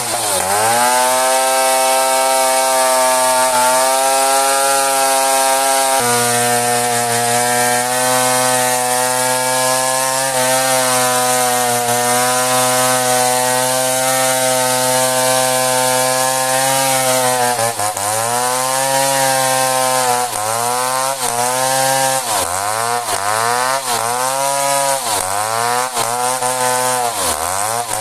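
Two-stroke chainsaw running at high revs while cutting into merbau hardwood, holding a steady pitch at first. About eighteen seconds in, its pitch starts dipping and recovering about once a second.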